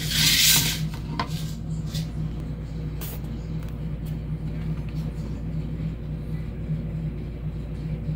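Steady low background hum, with a brief rustle right at the start and a few light clicks as the plastic grille of a car speaker is handled and lifted off.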